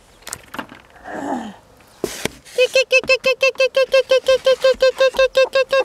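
A hen clucking rapidly, a long even run of short calls at about five a second that starts after a single knock about two seconds in.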